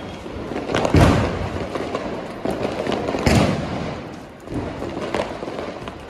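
Fireworks going off, with two loud thumps about a second and three seconds in over a steady crackle of firecrackers, and a sharp bang right at the end as the aerial shot fires.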